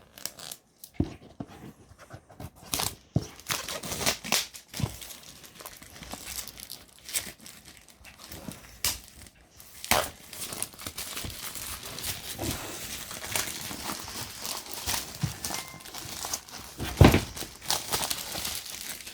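Packaging of a drone's retail box being torn and crinkled open by hand: irregular crackling and rustling with many small clicks. A single sharp knock near the end is the loudest sound.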